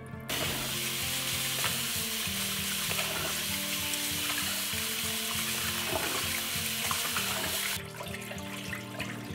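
Kitchen tap running hard into a plastic bowl of rice in a stainless steel sink while hands rub the grains to wash them. The rush of the tap stops suddenly near the end, leaving the quieter splash of cloudy rinse water being poured off into the sink, over soft background music.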